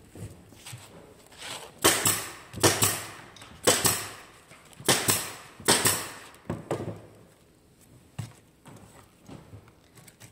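Wooden beehive frame parts being knocked together during assembly: a series of about eight sharp, irregular knocks and clacks, loudest in the middle, with a few fainter ones near the end.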